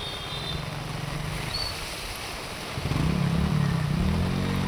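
Floodwater flowing through a street, a steady rushing noise. From about three seconds in a motor engine is heard running louder over it, its pitch rising and falling.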